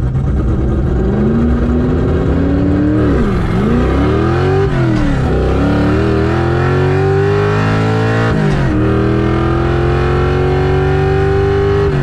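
Foxbody Mustang's 410-cubic-inch stroker V8 (bored and stroked 351 Windsor) at full throttle, heard from inside the cabin, revving up through the gears of its manual gearbox. The revs climb and drop sharply at three upshifts, about three and a half, four and a half and eight and a half seconds in, then fall off near the end as the throttle is lifted.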